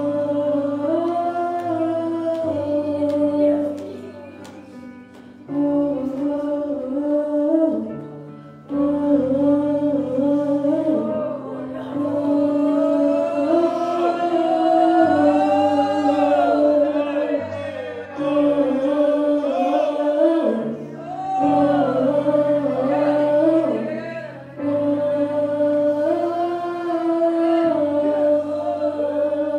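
A congregation singing spontaneous worship together, many voices holding long, steady notes in phrases a few seconds long with brief breaks between them.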